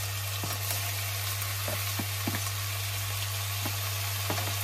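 Onions, peppers and garlic sizzling in hot oil in a stainless steel saucepan, with scattered light taps and clicks as marinated chicken pieces are scraped from a plastic tray into the pan with a wooden spoon. A steady low hum runs underneath.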